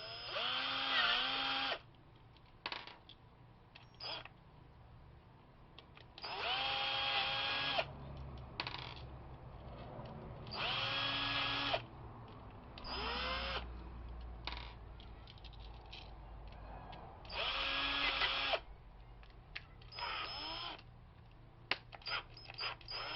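A power drill/driver running in short bursts, about six of a second or two each, its motor whine rising as each one spins up, as it backs the terminal screws out of a wall outlet. Small clicks and taps between the bursts, more of them near the end.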